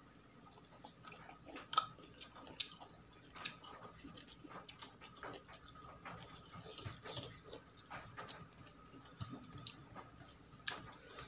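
Close-miked chewing and eating sounds: irregular crisp clicks and wet smacks of a mouthful of food being eaten.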